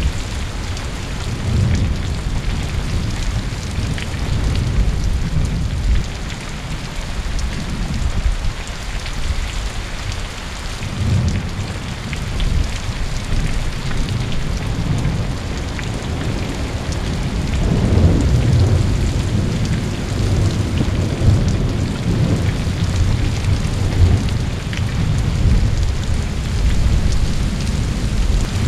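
Heavy rain falling steadily in a thunderstorm, with low rolls of thunder rumbling through it that swell and fade several times, the longest and loudest from about eighteen seconds in.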